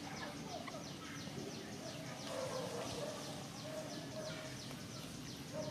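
Birds chirping outdoors: a steady run of short, high, falling chirps, several a second, with a fainter, lower wavering sound now and then.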